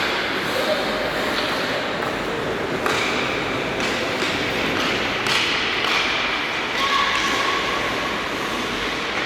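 Ice hockey rink during play: a steady din of voices with sharp knocks of sticks and puck against the ice and boards, and a few short high tones from about three seconds in.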